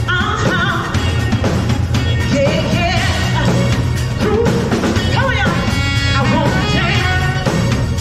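Live band playing a rock song: a woman singing into a microphone over a drum kit and guitar, with steady bass and drum hits under the sung melody.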